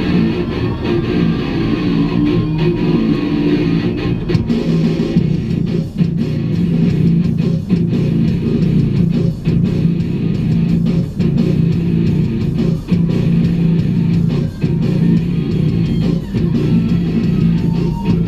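Rock music with guitar, probably a soundtrack laid over the footage.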